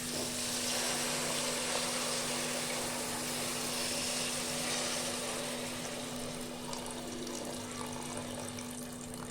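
Water pouring steadily into a pressure cooker pan over mutton breast bones and masala, the flow strongest in the first half and easing slightly later. A steady low hum runs underneath.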